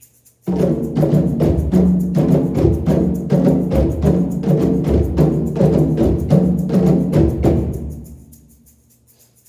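An ensemble of hand drums, congas among them, played together. The drumming comes in suddenly about half a second in as a dense run of strokes, then fades out toward the end into a second or so of near quiet.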